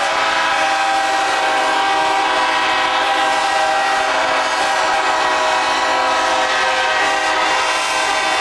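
Locomotive air horns blowing continuously, many pitches overlapping into one unbroken, loud chord.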